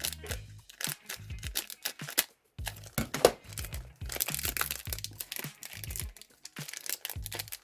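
Plastic trading-card pack wrapper crinkling and tearing as it is pulled open by hand, in irregular crackles.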